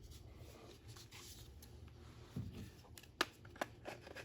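Faint handling noise: a soft knock about two and a half seconds in, then a few short sharp clicks in the last second and a half, as small tool parts are handled.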